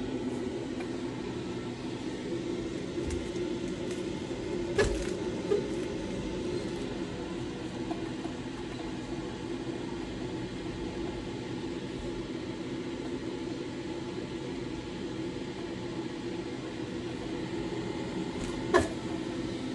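Electric blower of an air-flow demonstrator running steadily, a fan hum with a rush of air drawn through a large cone air filter. Two sharp knocks, about five seconds in and near the end, with a smaller one just after the first.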